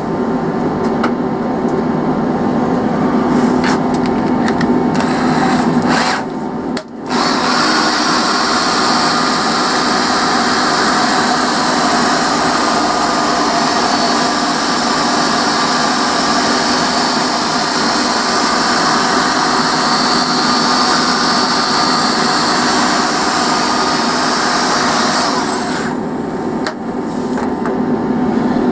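A hand-held power sanding pad grinding against a spinning wooden bowl on a lathe, with a high motor whine and the rasp of abrasive on wood. It starts about seven seconds in and stops a few seconds before the end, over the steady hum of the running lathe.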